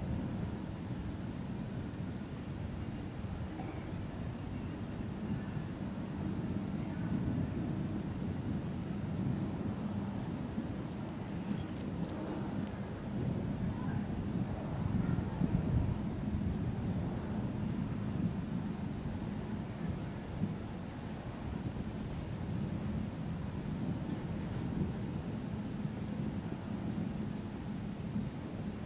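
Insects chirping in a steady, evenly pulsing high trill, over a low, uneven rumble of outdoor noise.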